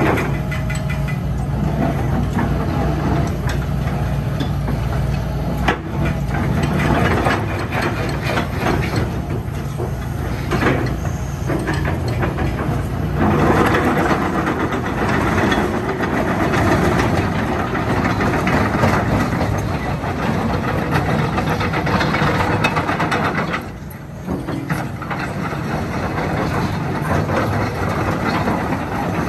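Hitachi ZX200-3 hydraulic excavator working: its four-cylinder Isuzu diesel runs under load while the boom and bucket move, with the steel crawler tracks clattering as it travels. The din eases briefly about four-fifths of the way through.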